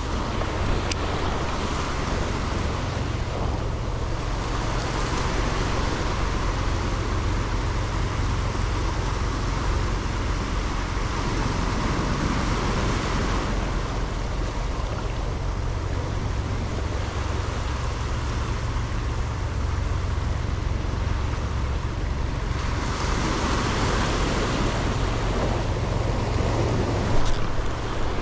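Sea surf washing over shore rocks, the rush of water swelling and easing every several seconds, over a steady low rumble of wind on the microphone.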